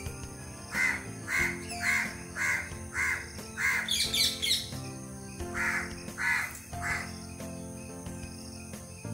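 A bird giving a series of short harsh calls about twice a second: six in a row, then a quick flurry of higher chirps, then three more. Steady background music runs underneath.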